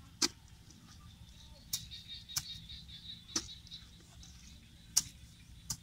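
A long-handled digging tool's metal blade chopping into dry earth: about six sharp strikes at irregular intervals.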